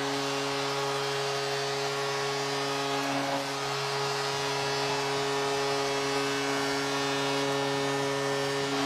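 Arena goal horn sounding one long, steady chord for a home-team goal, over a cheering crowd; the horn cuts off right at the end.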